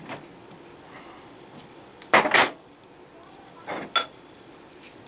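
Lathe chuck being loosened with its chuck key and a cast aluminium handwheel taken out of the jaws: a loud metallic scrape about two seconds in, then clanks and a short clink with a brief ring about four seconds in.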